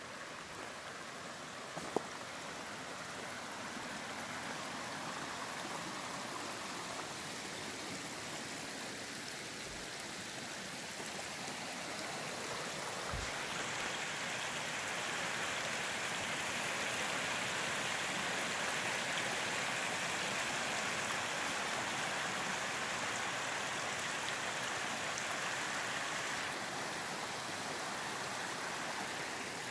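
Shallow, rocky forest creek running over stones: a steady rush of water that grows louder about halfway through and eases slightly near the end.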